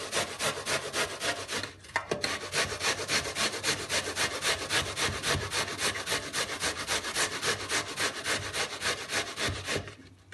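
Onion being grated on a stainless steel box grater: quick, even rasping strokes, about four or five a second, with a brief pause about two seconds in, stopping near the end.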